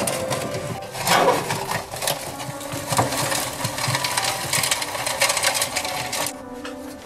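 Sheet-metal ash sifter being tilted and shaken in a wood heater's firebox, with coals rattling and clinking against the metal as the ash is sifted from them. A dense clatter that thins out near the end.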